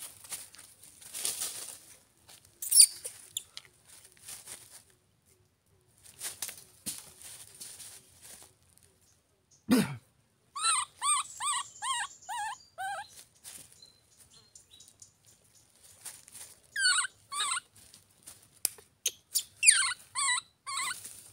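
Baby macaque crying: a run of about eight short, high-pitched, wavering cries about halfway through, then further bursts of cries near the end, with a single short squeal early on and a brief low thud just before the first run.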